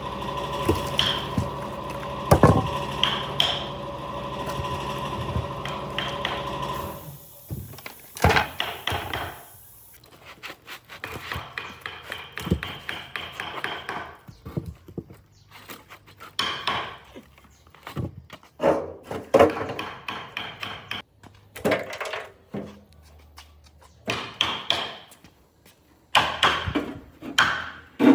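Woodworking shop sounds. A machine runs with a steady hum for about the first seven seconds, then stops. After that, pieces of wood are knocked and handled in irregular clusters of thunks and clatter.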